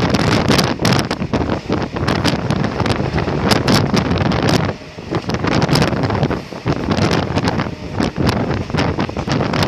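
Wind buffeting the microphone from a moving train, in uneven gusts with brief dips, over the running noise of the train.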